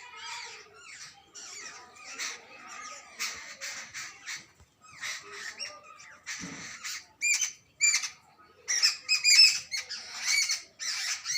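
Jungle babblers calling: a harsh, scratchy chatter, then from about two-thirds of the way in louder, sharper squeaky calls repeated in quick runs.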